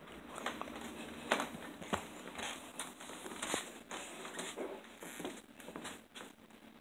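Close rustling and handling noise of the phone being moved over a fabric blanket: scattered scratches and clicks, with a few sharper clicks between one and four seconds in.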